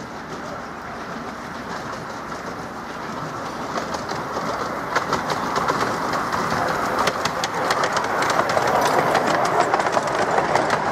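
A miniature steam locomotive and its passenger carriages approach and run past, growing louder as they come. From about halfway through, the wheels click rapidly over the rail joints.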